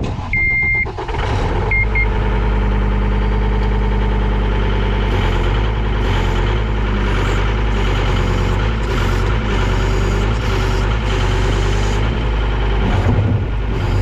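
A few short electronic warning beeps, then the John Deere 326D skid steer's diesel engine starts about a second in and runs steadily.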